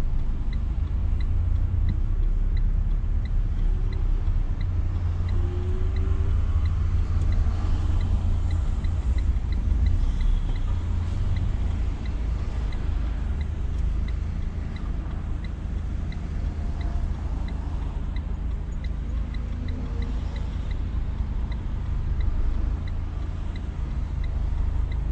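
Steady low engine and road rumble heard inside the cabin of a Renault car moving slowly in traffic.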